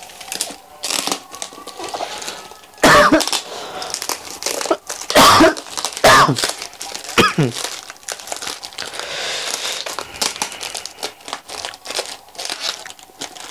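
Plastic wrapping and packing tape on a parcel crinkling and rustling as it is pulled open by hand, broken by four loud short bursts about three, five, six and seven seconds in.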